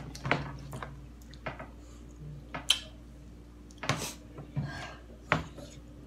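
Eating sounds at a table: about six separate short crunches and clicks, a second or so apart, from Takis-coated corn on the cob and the plates around it, over a faint steady hum.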